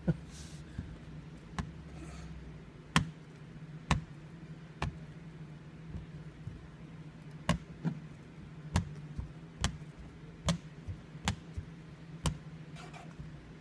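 Sharp, scattered clicks and taps, about a dozen, coming closer together in the second half, from hands and a squeegee working tint film on a wet windshield. A steady low hum runs underneath.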